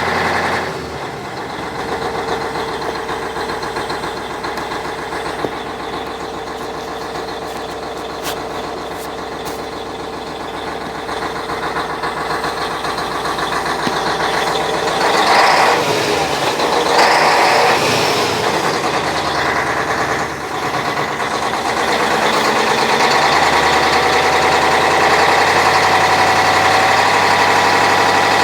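YaMZ-6581.10 V8 turbodiesel running with a steady, even beat, the engine in which the owner is chasing an unexplained knock. About halfway through it gets louder for a few seconds with short hissing bursts, then settles at a higher, steady level.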